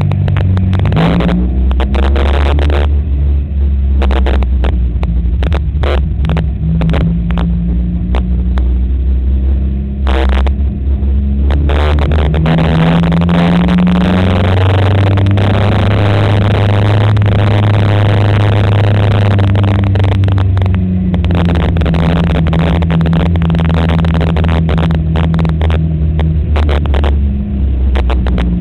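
Magic 4 stock car's four-cylinder engine running at low revs on the slow lap after the finish, heard from inside the car. The engine note picks up for several seconds near the middle, then settles back down. Frequent sharp knocks and rattles come over the top.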